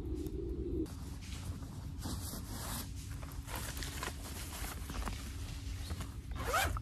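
Cloth stuff sack and plastic wrapping rustling and rubbing as they are handled and worked open by hand. A brief high chirp sounds near the end.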